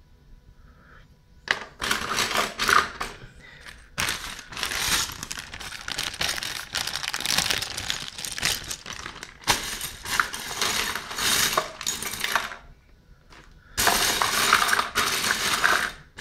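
Plastic building bricks poured out of their bags, clattering into a cardboard box. The rattling starts about a second and a half in, stops briefly near the end, then starts again.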